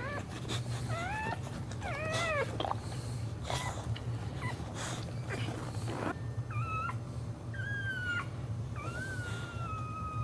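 Boxer bitch in labour whining. There are several short rising-and-falling cries in the first few seconds, then longer drawn-out whines from about six seconds in, as a puppy in its sac is being pushed out.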